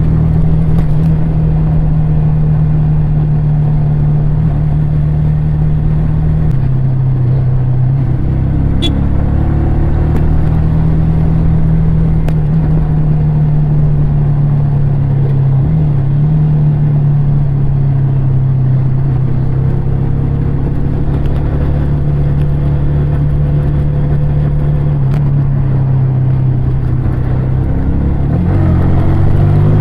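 Yamaha R15 V3's single-cylinder engine and exhaust running steadily while riding. The pitch shifts a little a few times and rises near the end as the throttle opens.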